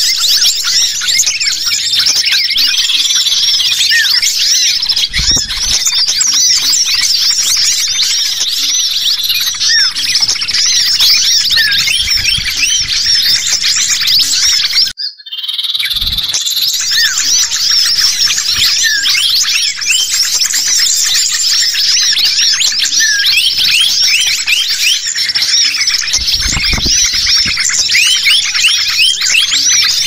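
A dense, busy chorus of many small birds chirping and twittering rapidly and continuously, led by agitated, noisy common iora calls mixed with other small songbirds, as in a layered bird-lure recording. There is a brief break about halfway through.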